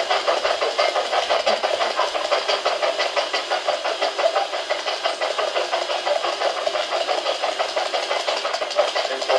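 Spirit box (ghost box) sweeping through radio stations: a steady stream of loud radio static, chopped many times a second.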